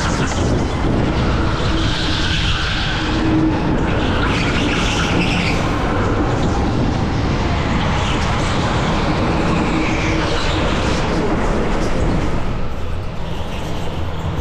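Electric rental go-kart driven at speed, heard onboard: steady loud running noise and rumble without a break, rising now and then into a higher hiss or squeal.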